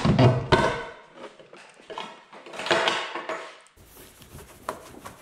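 Handling noises at a pickup's door: a clatter of knocks in the first second, a stretch of rubbing around the middle, then scattered light clicks.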